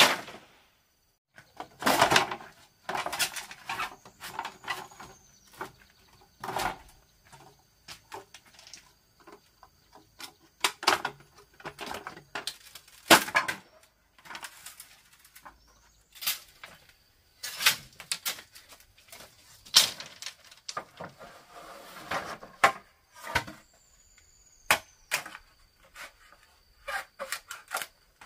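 Irregular knocks, taps and clatter of bamboo being worked by hand, some strikes sharp with a brief ring after them.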